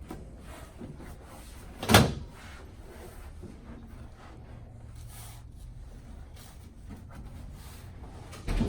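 A patient turning over onto his back on a chiropractic treatment table: one loud, sharp knock about two seconds in and a duller thump near the end.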